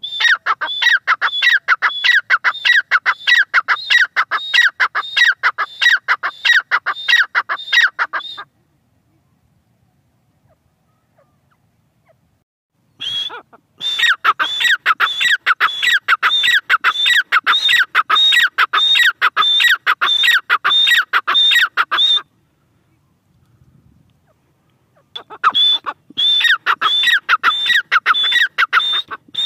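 Grey francolin calling: a loud, rapid series of shrill repeated notes, about three a second, in three bouts separated by pauses of a few seconds.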